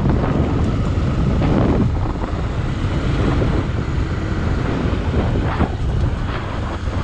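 Motorcycle engine running while riding, with steady wind noise buffeting the microphone.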